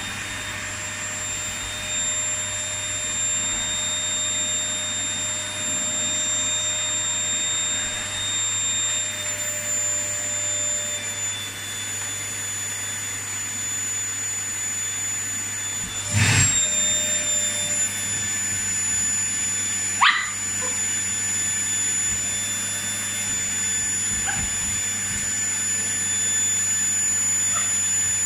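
Household vacuum cleaner running steadily with a constant high whine. There is a sharp knock about halfway through, and a dog gives a short yelp a few seconds later.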